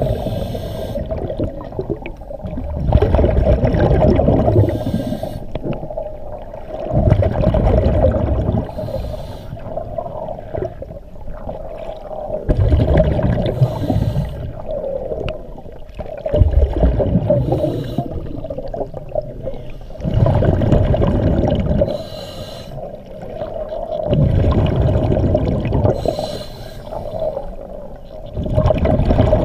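A scuba diver's regulator breathing underwater. Every four seconds or so, a one-to-two-second rush of exhaled bubbles is the loudest sound, with quieter inhalations between, over a steady hum.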